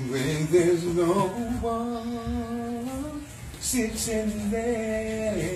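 A man singing solo and unaccompanied in a soulful style, drawing out long held notes that bend in pitch. He breaks briefly a little past halfway, then starts a new phrase.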